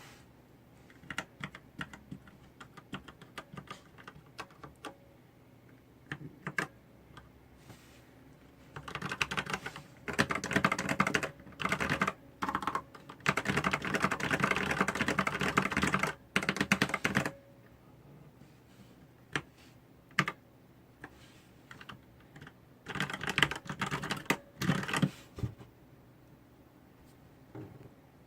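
Typing on an ABCO Hacker K8100 mechanical keyboard with red linear switches. Scattered single keystrokes give way to fast, continuous typing in the middle, then a shorter burst of quick typing later on.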